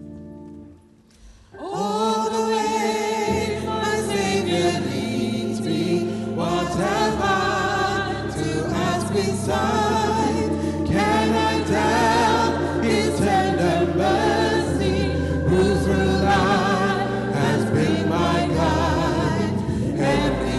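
A hymn sung by a group of voices, led by singers on microphones, over instrumental accompaniment with a sustained bass line. After a soft instrumental start, the full singing comes in about two seconds in.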